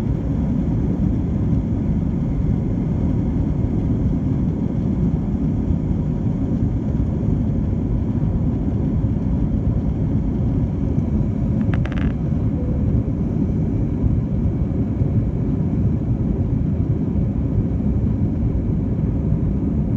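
Cabin noise of a JetBlue Airbus A321 climbing after takeoff: a steady low roar of engines and airflow heard from a window seat. A brief click-like sound comes about twelve seconds in.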